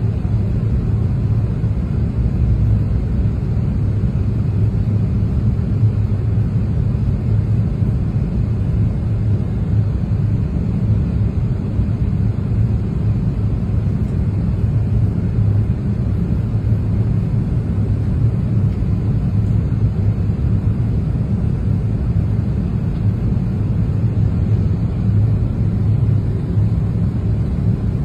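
Steady low rumble of an airliner's jet engines and rushing airflow, heard from inside the passenger cabin in flight.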